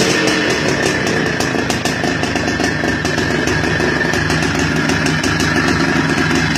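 Carabela motorcycle's 200 cc engine running steadily.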